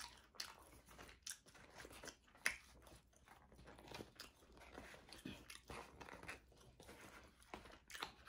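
Faint, scattered crunching and clicking as cardboard slider boxes are picked up and set down, with chewing.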